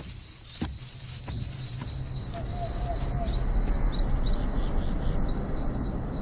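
Night savanna ambience: insects chirping at a steady high pitch, pulsing several times a second, with a few sharp clicks in the first two seconds and a low rumble that grows louder from about two seconds in.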